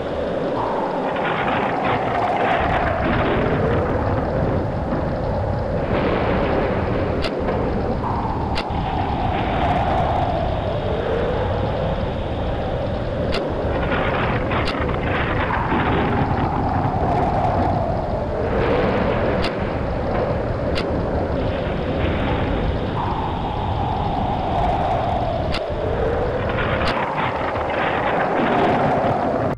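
Storm wind sound effect: steady wind noise over a deep rumble, with a whistling gust that falls in pitch and comes round again every seven seconds or so, and a few sharp ticks.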